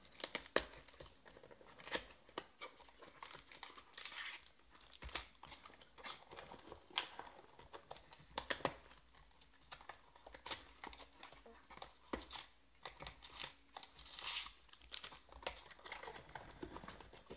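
Trading cards and their packaging being handled: irregular rustling and crinkling with light clicks and taps as cards are slid out, shuffled and tapped together.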